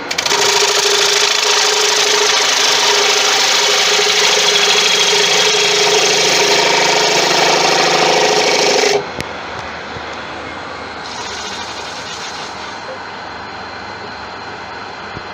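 Gouge taking a long cut on a large tiger wood bowl blank spinning on a Laguna 1836 wood lathe: a loud, steady shearing cut with a constant tone, lasting about nine seconds and then stopping suddenly, leaving the lathe running.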